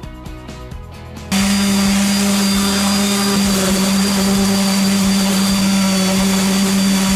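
Background music with a beat, then about a second in a wood router cuts in abruptly and runs loudly and steadily at high speed, a constant high motor whine over hiss.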